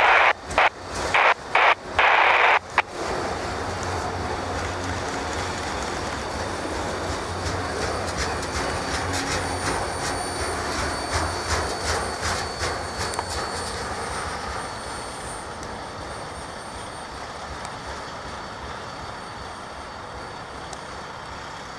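Norfolk Southern autorack freight train rolling past, with a steady rumble and clusters of wheel clicks in the middle, fading toward the end. Several loud, short, choppy bursts come in the first three seconds.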